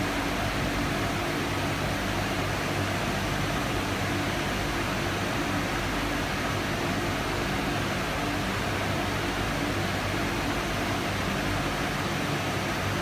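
Metal-cleaning machinery running steadily: an even hiss with a low hum that does not change.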